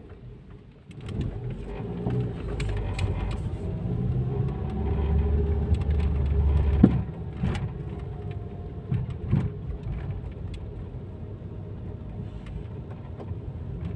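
Car engine and road rumble heard from inside the cabin as the car drives along an unpaved road, swelling about a second in as it pulls away, loudest through the middle, then settling to a steadier, quieter run. A sharp knock about two thirds of the way through, with scattered small rattles and clicks from the bumpy road.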